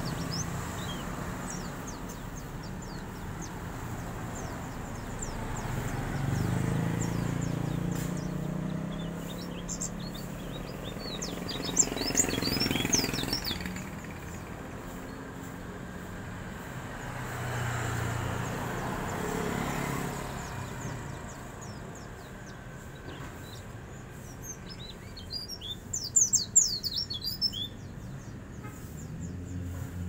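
Caged pleci dakun (a white-eye) giving its rapid, high-pitched ngeriwik chirping in short bursts of quick notes, strongest about a third of the way in and again near the end.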